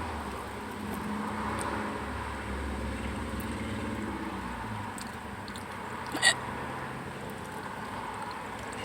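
A single short hiccup about six seconds in, over a steady low background rumble.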